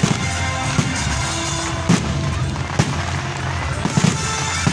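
Aerial fireworks bursting, about half a dozen sharp bangs roughly a second apart, over steady music.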